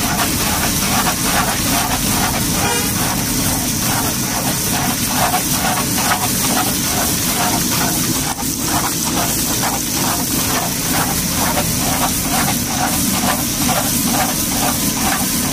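Puris deep-frying in a large iron kadhai of hot oil: a steady sizzling hiss as they puff up, stirred with a perforated skimmer. Underneath runs a steady low hum with a regular pulsing of about three beats a second, like a machine running close by.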